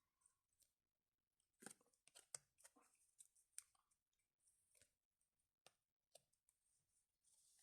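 Faint crackling and clicking of trading-card packs and packaging being handled, in irregular short snaps, busiest in the middle seconds.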